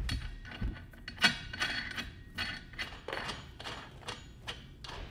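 Irregular metal clanks, clinks and knocks of steel wheel rims and axle parts being handled, with a dull thump at the start and a sharp clank about a second in.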